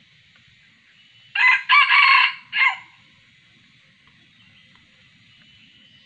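Red junglefowl rooster crowing once, about a second and a half in: a short crow in three parts, the middle part the longest. A steady faint high hiss runs underneath.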